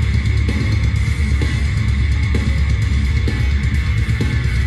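Rock track played loud through an Eltronic 20-61 Fire Box 1000 portable party speaker, with heavy bass and a drum beat about once a second.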